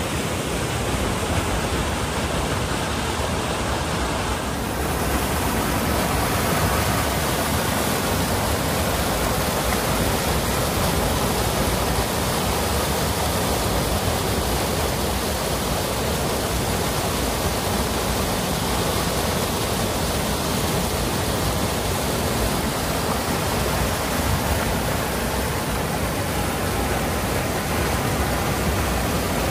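Brown stormwater floodwater pouring over a concrete drain step and churning below: a steady rushing of water.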